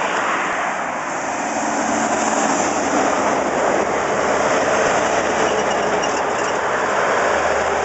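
Scania 164 truck with its V8 diesel engine running as it drives past, a loud, steady mix of engine and road noise.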